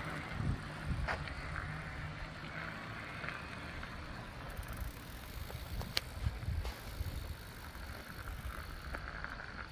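QuietKat Jeep fat-tire electric bike riding off on pavement under pedal assist at power level 1, its tyres and motor faint and fading as it moves away, over a low rumble. A single sharp click comes about six seconds in.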